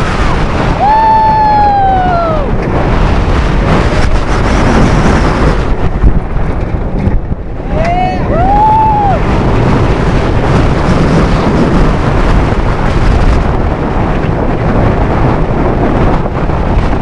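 Nitro, a Bolliger & Mabillard steel hyper coaster, running at speed: a continuous loud wind rush on the microphone over the rumble of the train. Riders scream twice, about a second in and again around eight seconds in.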